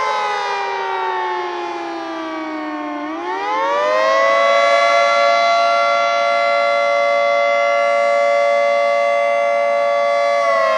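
Federal Signal 2T22A dual-tone outdoor warning siren sounding the wailing attack signal. Its two-note chord slides down in pitch for about three seconds, climbs back up over the next second or so, holds steady, and starts to fall again near the end.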